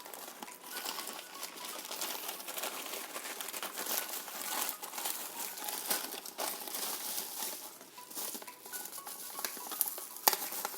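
Packaging crinkling and rustling as it is handled and opened, with a continuous irregular crackle and one sharp click near the end.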